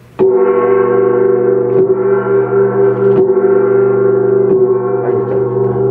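A gong ringing: a loud, steady hum of several tones with a slight waver, starting suddenly and holding its level without dying away, with a few faint taps on top.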